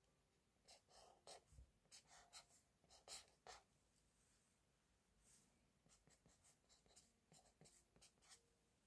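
Faint scratching of a chisel-tip marker drawing short strokes on paper: a quick run of strokes in the first few seconds, then lighter, more spaced strokes in the second half.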